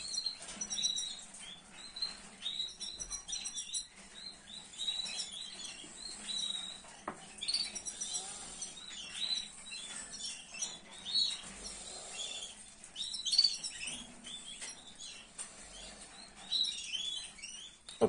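Canary nestlings about eight days old peeping: many short, high chirps in quick irregular succession while they are handled in the nest, with a few faint handling clicks and rustles.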